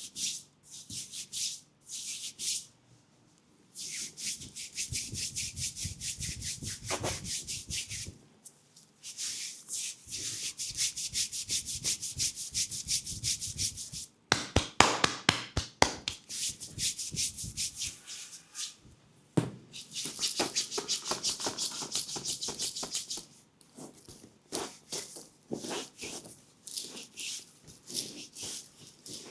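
Hands rubbing oiled skin on a leg in fast, rhythmic massage strokes, in runs of a few seconds with short pauses. About halfway through there is a brief run of louder, sharp taps.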